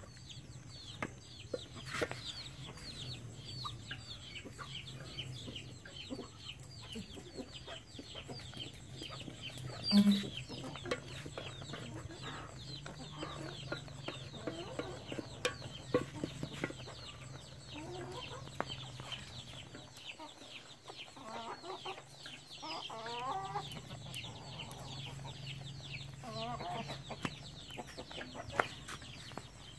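Chickens clucking, with a dense run of short, high, falling peeps throughout. Scattered light knocks come from a wooden spoon stirring in an aluminium saucepan, and there is one louder low knock about ten seconds in.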